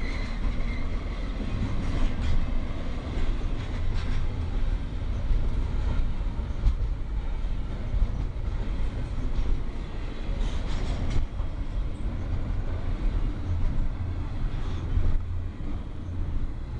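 Cars of a Union Pacific manifest freight train rolling past in a steady low rumble, with a few short clicks from wheels crossing rail joints.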